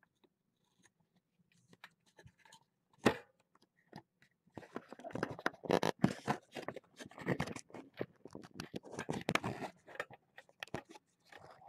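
A kitten's fur rubbing and brushing right against the webcam: a sharp knock about three seconds in, then several seconds of dense scratchy rustling close on the microphone.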